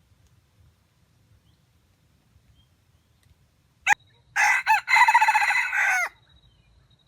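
A rooster crows once: a short sharp note about four seconds in, then a crow of under two seconds that cuts off cleanly.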